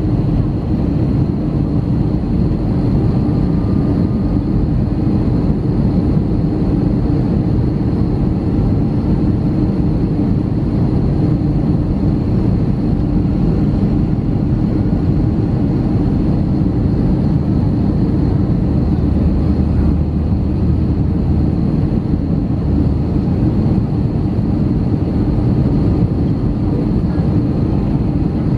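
Steady cabin noise inside an Airbus A320-214 descending on approach: an even rumble of airflow and its CFM56-5B turbofan engines, with a faint steady high whine above it.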